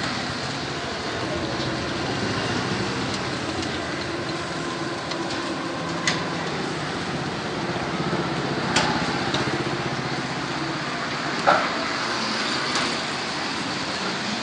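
Street ambience with steady motor-vehicle engine and traffic noise, broken by a few sharp knocks or clicks about six, nine and eleven and a half seconds in.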